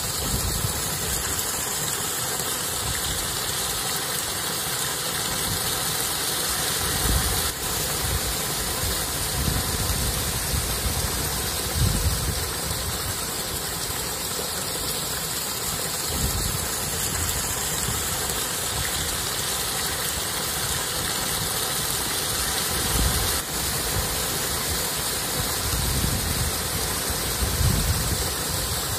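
Small rocky stream running over stones, a steady rushing, with louder low rumbles a few times.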